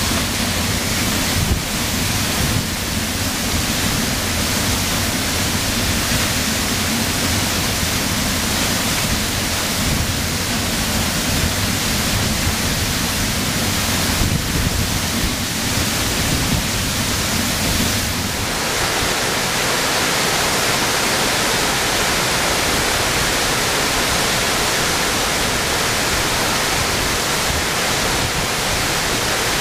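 Falling Springs Falls waterfall: water pouring onto rocks in a steady loud rush of noise, heard from beneath the falls in the spray. About eighteen seconds in the sound shifts to a brighter hiss with less low rumble.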